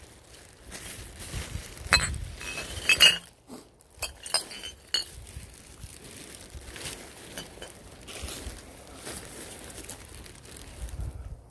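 Glass bottles clinking against each other inside a plastic rubbish bag carried while walking, with sharp clinks loudest about two and three seconds in, over the rustle of the bag and footsteps on dry pine needles.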